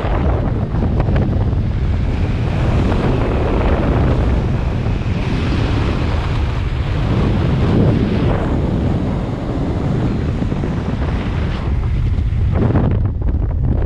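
Airflow rushing over the camera microphone during fast speedflying flight under a small wing: a steady, loud wind noise, heavy in the low range. The higher hiss thins for a moment near the end.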